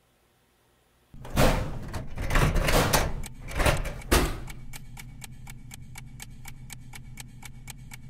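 Metal filing-cabinet drawer dragged open in several loud sliding scrapes, starting about a second in. Then rapid, even ticking, about five ticks a second, over a low hum.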